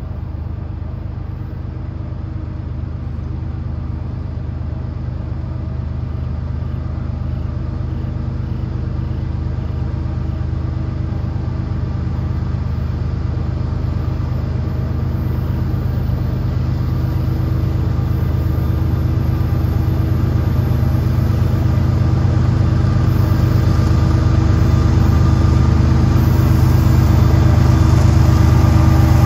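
Diesel locomotive engine running steadily with a deep, low hum, growing slowly louder as it draws nearer.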